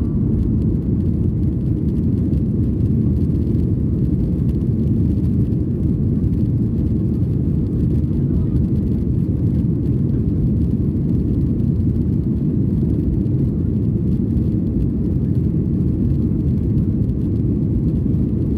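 Cabin noise of a Boeing 737 jet airliner rolling along the runway: a steady low rumble of the engines and the wheels.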